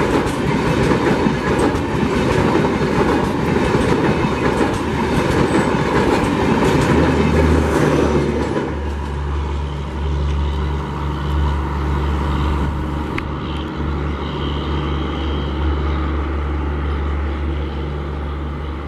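Express train coaches passing close at speed, their wheels clattering rapidly over the rail joints. About eight and a half seconds in, the clatter cuts off as the last coach goes by, leaving a steady low rumble that slowly fades as the train draws away.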